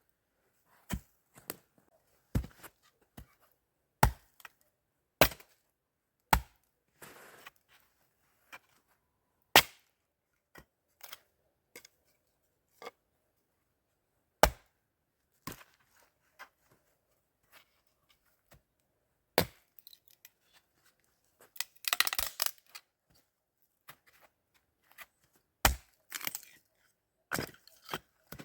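Wood being chopped: a series of sharp single blows at irregular intervals, with a short burst of crackling and snapping of twigs about three-quarters of the way through.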